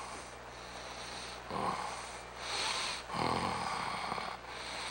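A man's noisy breaths through the nose and throat, three of them, the last the longest and loudest.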